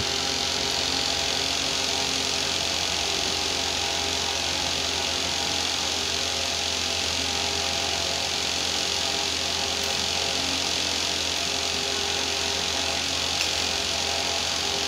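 Steady fan hum and airy hiss of room ventilation, unchanging throughout, with one light click about thirteen seconds in.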